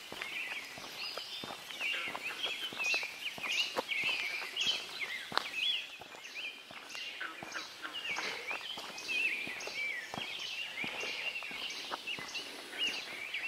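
Dawn chorus of many songbirds singing at once in woodland, with steady footsteps on a gravel road.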